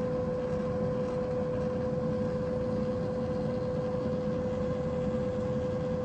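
Genius hot-air fryer running: a steady fan drone with a constant whining tone.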